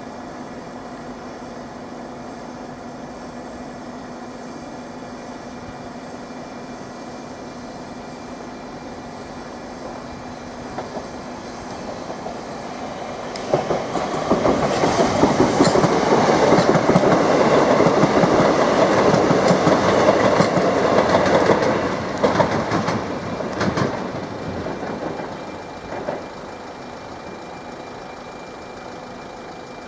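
Southern Class 377 Electrostar electric multiple unit passing at speed, its wheels clattering rhythmically over the rails. It builds up, is loudest for about nine seconds in the middle, then fades away. A faint steady low hum is heard before it arrives.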